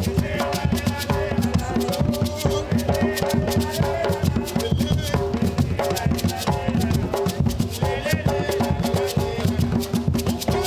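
Live gwoka music: ka hand drums beating a steady rhythm under a shaken rattle, with a man singing over them.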